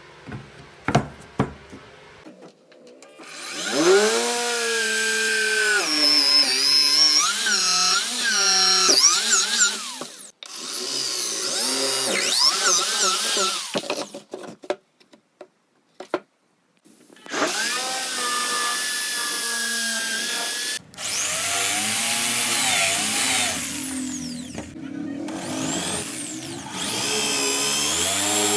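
Handheld electric power tool working the wood of a cricket bat, run in several bursts. The motor whines up to speed, its pitch wavering and dipping as it bites into the wood, and cuts out and restarts a few times, with a few handling clicks before the first start.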